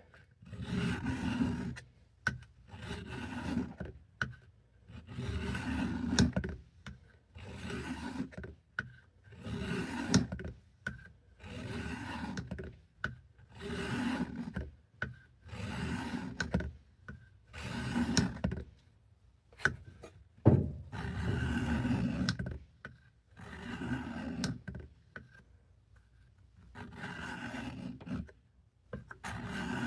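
Knife blade being drawn across a coarse-grit sharpening stone lubricated with WD-40, in slow, even rubbing strokes about every two seconds.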